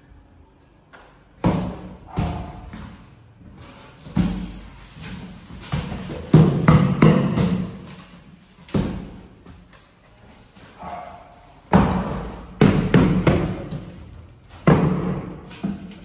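Large cardboard boxes being handled and shifted on a tiled floor: a run of irregular thuds and knocks, with scraping and rustling of cardboard between them.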